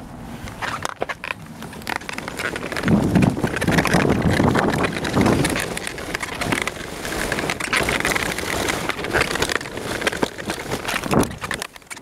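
Mountainboard riding downhill over grass and dry leaves, its air-filled wheels rumbling and crackling through the ground cover; it gets louder about three seconds in.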